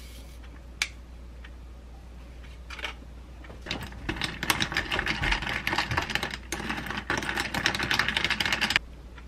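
Ice cubes clinking and rattling against a glass as an iced drink is stirred with a straw: a rapid, loud clatter of clicks lasting about five seconds that stops suddenly near the end.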